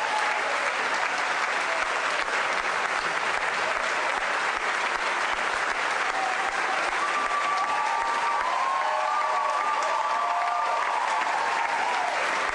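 A large crowd in a debating chamber applauding steadily after a vote result. In the second half, a few held high calls or whistles rise over the clapping.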